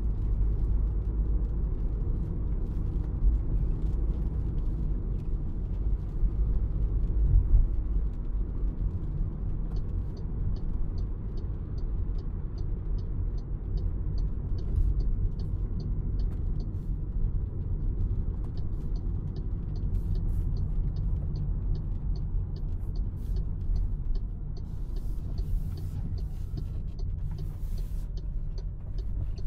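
2024 MG3 Full Hybrid+ driving: a steady low rumble of road and drivetrain noise. A light, regular ticking of about two a second joins about ten seconds in and stops a few seconds before the end, followed by a few scattered clicks.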